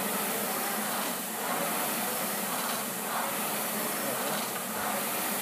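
Air-resistance rowing machine's fan flywheel spinning hard under all-out rowing: a rushing whoosh that swells with each stroke.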